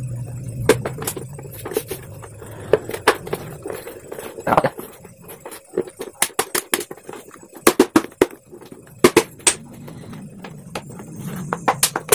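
Plastic blender base housing being handled and fitted back together: irregular sharp clicks and knocks of hard plastic parts against each other and the floor.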